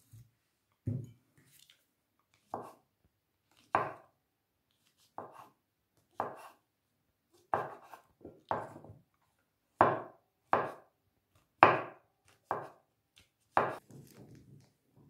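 Kitchen knife slicing mushrooms on a wooden cutting board: about twelve separate chops, each a sharp knock of the blade through the mushroom onto the wood, roughly one a second at an uneven pace.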